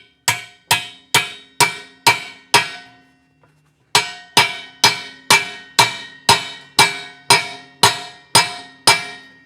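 Hammer blows ringing out on a driver as a bronze intake valve guide is driven into a heated aluminium Aermacchi cylinder head. There are about two blows a second: six, then a short pause, then eleven more as the guide goes down toward its seat.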